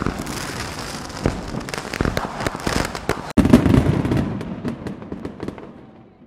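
Fireworks sound effect: a dense run of crackles and pops, with a sudden louder burst of crackling about three seconds in that then fades away near the end.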